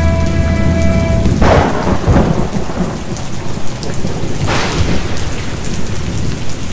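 Recorded thunderstorm in a stage soundtrack: steady rain with two thunderclaps, the first about a second and a half in and the second about four and a half seconds in. A held note from the music cuts off just before the first clap.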